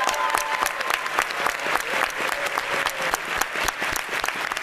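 Audience applauding, dense and steady clapping after the final chord of a choral piece.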